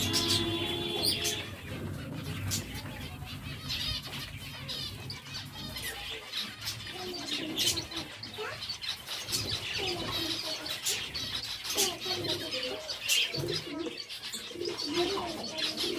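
A flock of zebra finches calling, many short chirps overlapping, with wing flutters as birds flit between perches.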